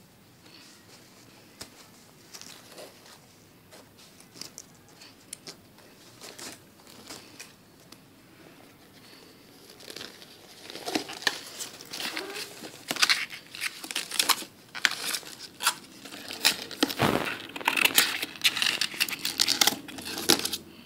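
A thin green bag being untied, opened and handled: light rustles at first, then busier, louder crinkling and rustling from about halfway, with one soft low thump near the end.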